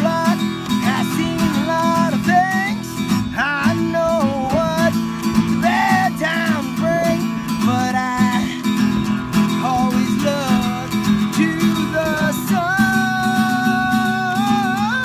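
A man singing while strumming an acoustic guitar, holding one long note near the end.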